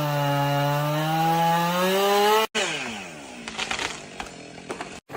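Chainsaw running at high revs, its pitch creeping up slightly. It cuts off abruptly about two and a half seconds in, then a chainsaw is heard winding down off the throttle, its pitch falling, with a few sharp clicks.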